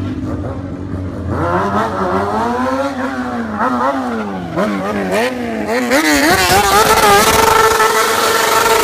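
Motorcycle engine idling, then revved in long rising and falling swoops from about a second in, with quicker blips, and held steady at high revs for the last couple of seconds.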